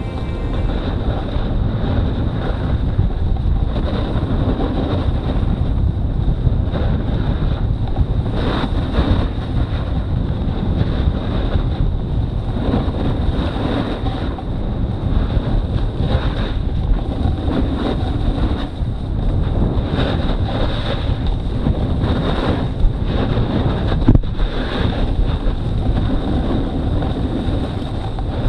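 Wind rushing over the microphone, mixed with the scraping of a snowboard over snow during a downhill run.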